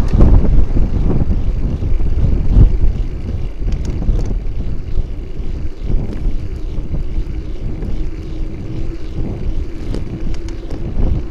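Wind buffeting the microphone and road rumble from a bicycle-mounted camera while riding on a paved street, louder in the first few seconds. A few light clicks and rattles are heard, and a faint steady hum joins about halfway through.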